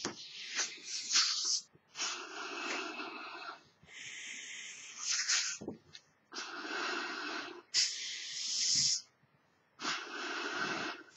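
A person blowing up a large duck-shaped figure balloon by mouth: long, breathy blows into the balloon, about three, each followed by a quick hissing inhale.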